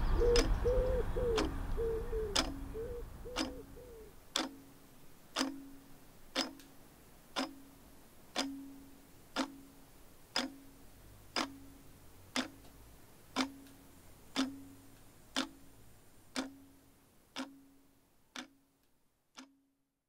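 A clock ticking steadily about once a second, each tick followed by a short low ring, growing fainter over the last few ticks. Over the first few seconds the park's low background rumble and a bird's wavering call fade away beneath it.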